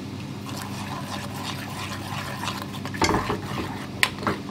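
Silicone spatula stirring starch slurry into a simmering broth in a small hammered metal yukihira saucepan, scraping the pan in repeated strokes as the ankake sauce thickens. A knock against the pan about three seconds in, over a steady low hum.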